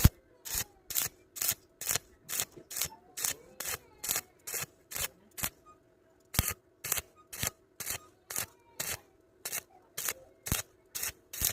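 Hand strokes rasping back and forth on a metal workpiece, about two a second, with a brief pause a little after halfway before the strokes resume.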